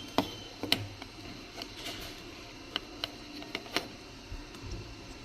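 Irregular small clicks and taps from the Galaxy Buds 3 Pro earbuds and their plastic charging case being handled, about eight sharp clicks spread over a few seconds.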